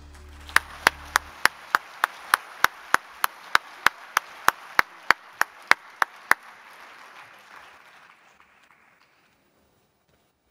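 Audience applauding, with one person's loud, evenly spaced claps close by, about three a second, which stop after about six seconds. The applause then dies away toward the end.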